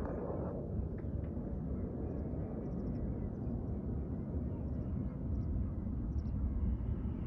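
Steady low outdoor rumble with no clear source, and faint high bird chirps now and then.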